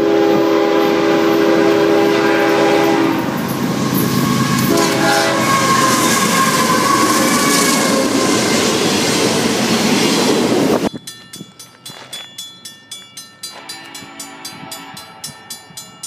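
Freight locomotive's multi-tone air horn blowing a long blast, then a short one, over the loud rush and rumble of a double-stack container train passing close by. About eleven seconds in the train noise cuts off suddenly and a grade-crossing bell is heard dinging rapidly, about three strikes a second.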